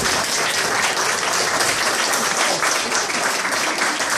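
Audience applauding, many people clapping at once.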